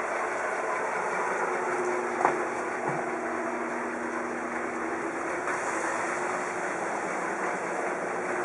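Hino Dutro truck's 4-litre diesel engine idling steadily, with a single click about two seconds in.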